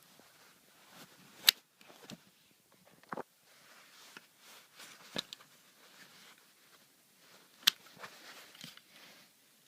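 Handling noise from a folding axe multitool: a few sharp clicks with soft rustling between, the loudest click about a second and a half in and another near the end.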